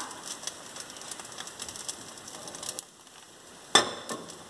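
Pancake batter frying in an oiled pan, a fine scatter of faint crackling ticks, with a sharp clack about three-quarters of the way through and a lighter one just after.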